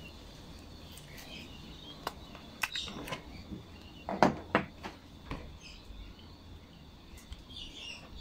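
Scattered light clicks and knocks of hard plastic as the white plastic jet-and-nozzle piece of a Briggs & Stratton 500E carburetor is pried out of the black carburetor body with a flat metal tool. The sharpest knocks come about four seconds in.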